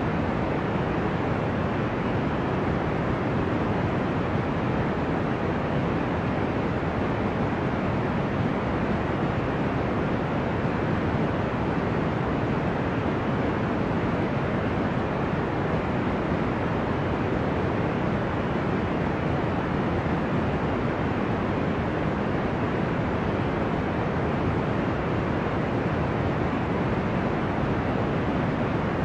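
Steady deep white noise with an ocean-like sound, its energy held low, keeping an even level with no swell or break of separate waves.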